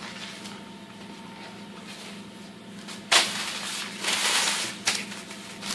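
Hand sweeping spilled flour across a silicone pastry mat: a sudden scraping rustle about three seconds in, a second longer brushing stretch just after, and a short click near the end, over a faint steady hum.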